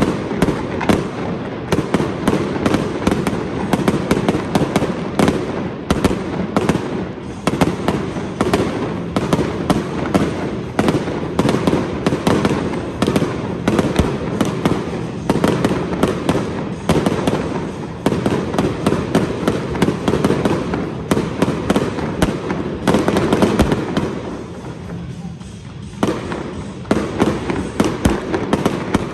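Fireworks display: aerial shells bursting in many rapid, overlapping bangs, with a short lull near the end.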